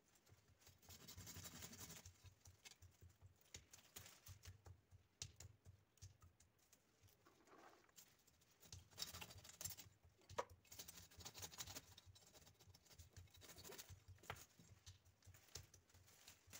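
Faint rustling of pomegranate twigs and leaves being handled at the base of the bush, with scattered sharp clicks.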